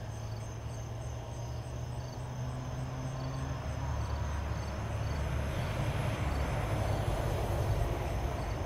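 Low rumble of distant thunder that swells from about three seconds in and peaks near the end. Insects chirp in a high, regular rhythm behind it.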